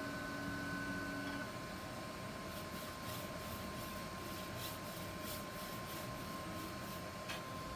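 QiDi X-One 2 3D printer standing powered with a steady thin high whine. A lower hum and a second tone cut out about a second and a half in. Faint light ticks and rubbing come from hands working the print bed.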